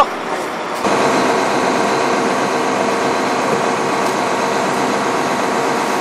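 Fishing boat's engine running steadily, a constant drone that sets in abruptly about a second in.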